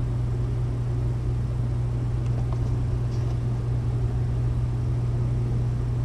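A steady low hum, with a couple of faint taps from a cardboard figure box being handled.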